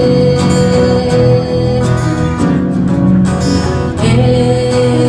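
Song instrumental with acoustic guitar accompaniment between sung lines. A long held note sounds over it, breaking off about two seconds in and coming back about four seconds in.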